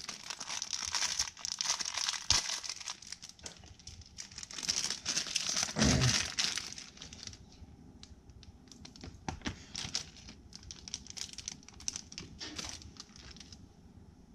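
Clear plastic packaging bag crinkling as it is handled and opened, with one knock about six seconds in; the crinkling turns sparser and quieter in the second half.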